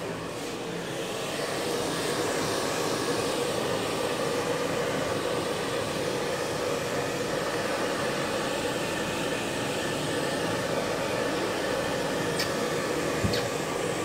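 Hair dryer running steadily, getting a little louder about two seconds in.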